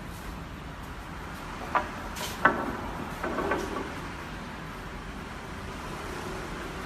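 A few sharp knocks, then a brief clatter, as wooden pieces are lifted and set down on the saw, over a steady low hum.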